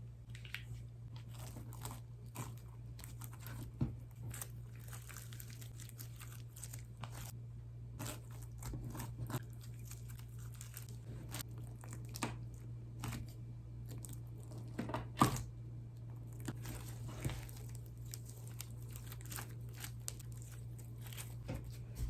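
Hands squeezing and pulling sugar slime, its grainy, crusted texture giving irregular crunching, crackling and tearing sounds, with a sharper snap about 4 s and 15 s in. A steady low hum runs underneath.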